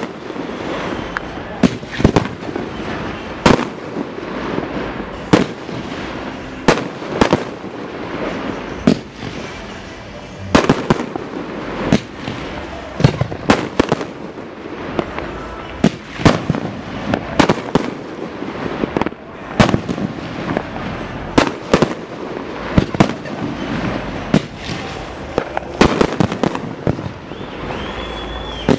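Aerial fireworks shells bursting in a dense, irregular barrage of sharp bangs, often several a second, over a continuous crackling haze.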